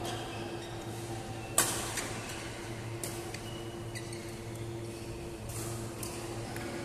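Badminton rally: sharp smacks of rackets striking a shuttlecock, one loud hit about one and a half seconds in and lighter hits spread through, over a steady hum.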